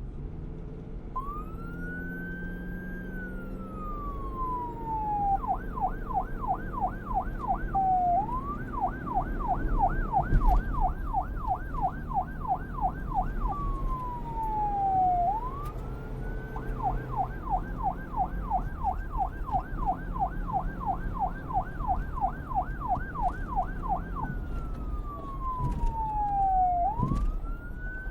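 Police siren cycling between a slow wail and a fast yelp, over a low rumble. It starts about a second in with a long rising and falling wail, then switches back and forth between rapid yelping sweeps of about three or four a second and slow wails.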